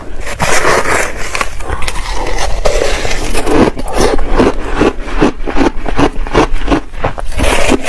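A metal spoon scraping and scooping through crushed ice, then close-up crunching of the ice being chewed, several crisp crunches a second.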